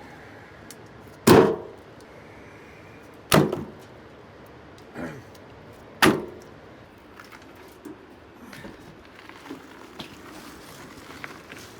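Split firewood pieces knocking down onto a pile one at a time: three loud wooden knocks a couple of seconds apart and a softer one between them. Lighter clicks and rustling follow near the end.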